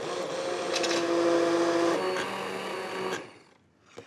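Hand-held immersion blender running steadily as it purées sauce in a stainless steel pot, then switching off just after three seconds in.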